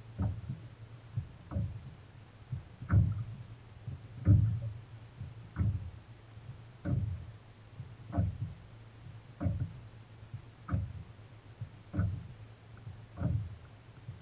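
Small waves slapping against a boat's hull in a regular rhythm, about one dull slap every second and a quarter.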